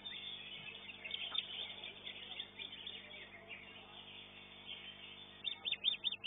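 Greater green leafbird (cucak hijau) singing, with scattered high chirps and whistles, then a quick run of about six sharp repeated notes near the end.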